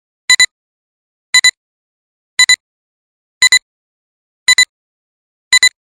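Electronic countdown beeps from a film-leader countdown intro: a short, high-pitched double beep about once a second, six times, with silence between.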